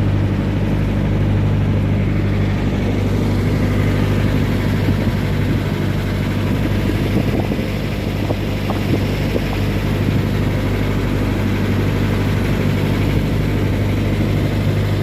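An engine running steadily at an even speed, a deep constant hum.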